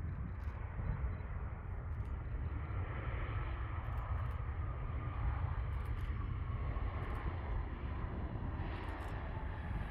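Airliner passing close while landing: a strong low rumble of engine and air noise, with an engine tone that falls slowly in pitch as it goes by.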